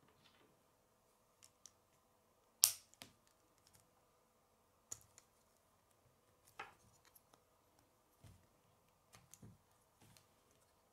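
K'nex plastic rods and connectors being handled and snapped together: scattered sharp plastic clicks, the loudest about two and a half seconds in.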